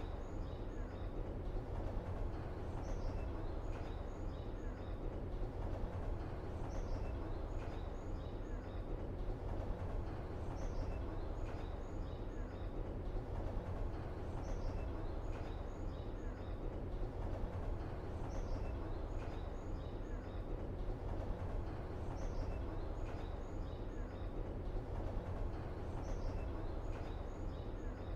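Steady low background rumble with a short cluster of high chirps recurring about every four seconds, in the manner of a looped outdoor ambience track.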